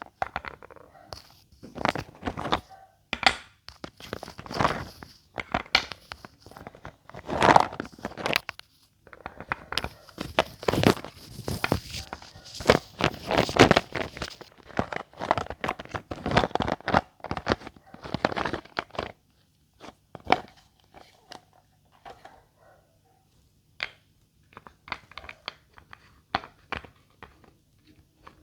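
Irregular crunching and crackling, as of something being broken up by hand: dense and busy for most of the time, then thinning out to scattered fainter crunches near the end.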